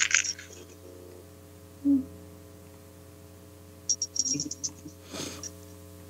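Steady low electrical mains hum, with a quick run of light clicks about four seconds in and a short breathy rush of noise just after five seconds.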